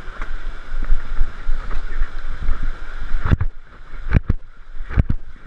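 River water rushing and splashing around an inflatable raft in whitewater. About three seconds in the sound suddenly turns duller, and several dull thumps follow.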